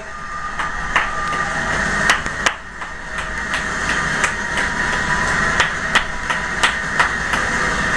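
Hand claps, sharp and irregularly spaced, over a steady noisy din of crowd noise from the television.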